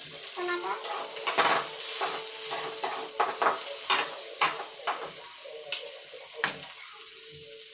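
Chopped tomatoes and onions sizzling in a metal kadai as a spatula stirs them, with a steady hiss of frying and sharp clicks and scrapes of the spatula against the pan. The clicks come thick and fast from about a second in and thin out near the end.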